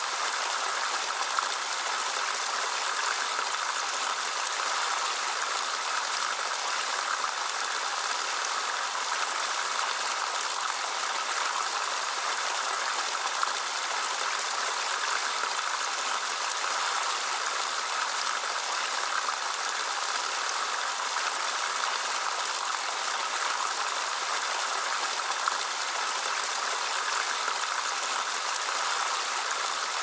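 Water in a multi-level faux-rock outdoor waterfall fountain, pouring in thin streams from its spouts and splashing into the basins below: a steady trickling and splashing.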